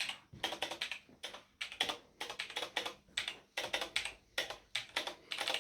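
Keys of a Razer BlackWidow Elite mechanical keyboard being tapped in quick clusters of clicks, played in a rough rhythm like drums.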